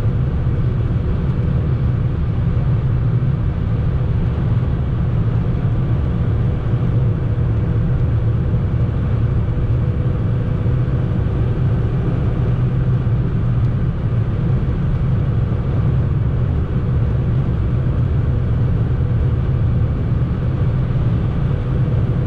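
Fiat Panda cruising at motorway speed, heard from inside the cabin: a steady low drone of engine, tyres and road, with a faint steady hum above it.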